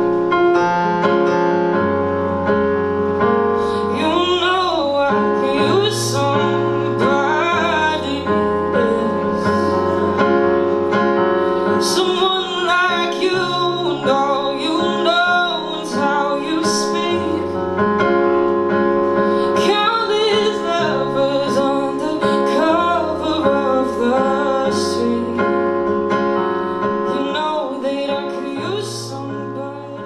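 A woman singing a slow song with piano accompaniment; the music fades out near the end.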